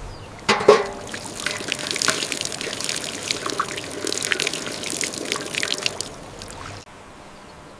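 Water trickling and splashing in a crackly, irregular patter, starting with a louder burst about half a second in and cutting off abruptly near the end.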